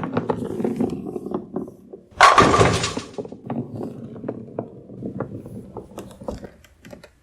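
Bowling ball rolling down a lane with a low rumble, then a loud crash about two seconds in as it strikes the pins, followed by pins clattering and knocking as they settle and fade out.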